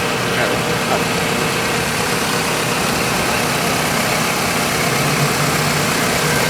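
2001 Toyota Corolla's four-cylinder engine idling steadily with the hood open, with a low hum that grows stronger about five seconds in.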